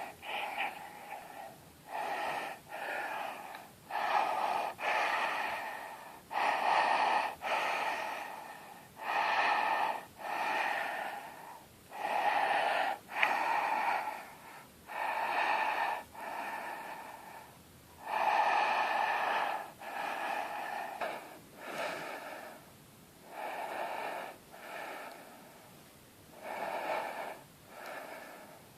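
A person breathing very deeply with the throat opened wide, each breath in and out a drawn-out rasping rush of air. The breaths come in pairs about every two to three seconds.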